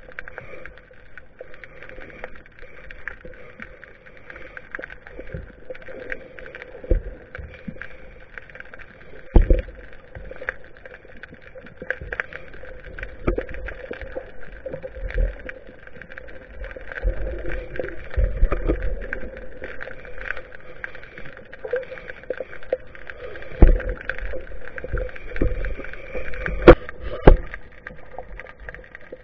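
Muffled underwater sound picked up through a GoPro's waterproof housing hanging in the sea. A steady hum and water rushing run throughout, with irregular knocks of the housing, the loudest about a third of the way in and several near the end.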